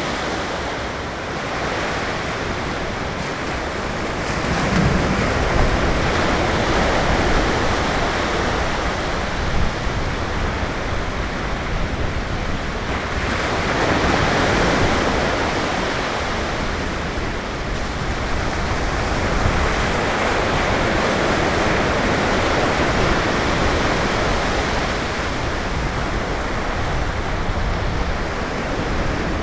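Ocean surf breaking on a sandy beach: a continuous wash of noise that swells and eases several times as waves break and run up the shore.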